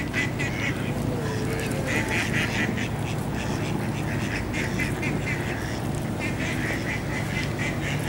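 Mallard ducks quacking in quick runs of calls, several bursts a few seconds apart, over a steady low rumble.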